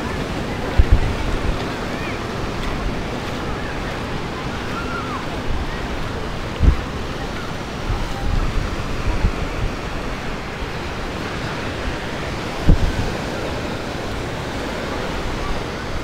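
Ocean surf washing steadily onto the beach, with wind buffeting the microphone in a few low thumps.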